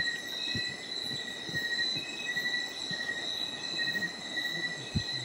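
Night insects trilling: one steady, unbroken high tone with a second, lower chirping line that breaks on and off. A few soft low knocks come through underneath.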